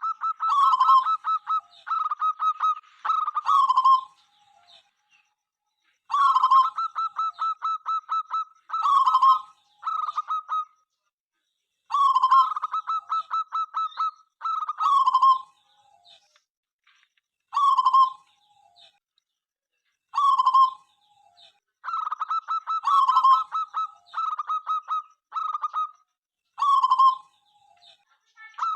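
Local zebra dove (perkutut) cooing: phrases of rapid, pulsed coos a few seconds long, repeated after short pauses.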